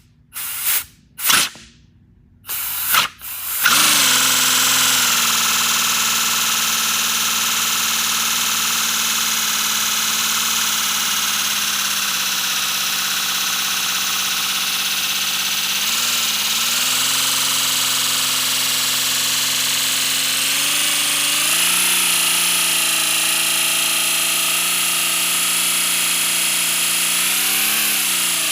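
3D-printed V12 air engine on compressed air: a few short bursts, then it spins up and runs steadily with a loud hissing whir. Its pitch steps up a little several times later on as it speeds up.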